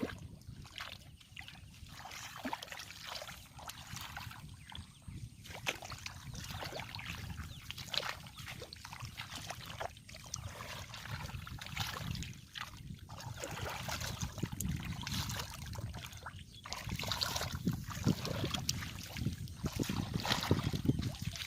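Shallow water splashing and sloshing as hands work through it in hand fishing, in many short, irregular splashes.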